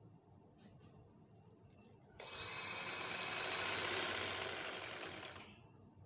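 Sewing machine stitching in one fast, steady run of about three seconds that starts about two seconds in and stops sharply, with a couple of faint clicks before it.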